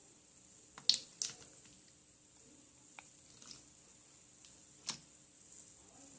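Clear slime being squished and poked by hand, giving a few sharp little pops and clicks: two loud ones about a second in and another near the end.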